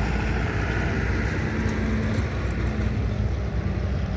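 Heavy diesel engine running steadily with a low drone; a higher steady hum in it fades out a little past three seconds in.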